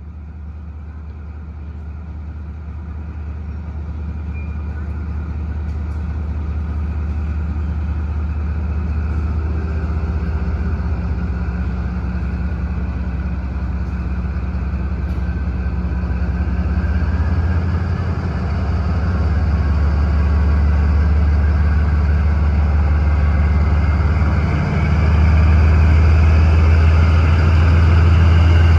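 D19E diesel-electric locomotive's engine running under load with a deep steady drone, growing steadily louder as the train pulls out. It dips briefly and steps up louder twice in the second half.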